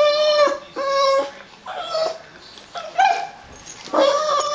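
Boston Terrier whining and crying in a run of loud, drawn-out high-pitched whines, about one a second, protesting at being held back from running to the door.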